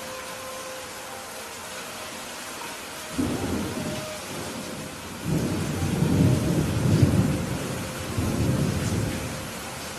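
Steady rain with rolling thunder: a low rumble starts about three seconds in, then a longer, louder rumble builds from about five seconds, peaks, and dies away near the end.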